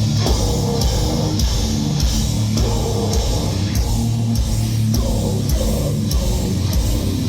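Live metallic hardcore band playing loud, heavy distorted guitars and bass over steady, regular drum and cymbal hits.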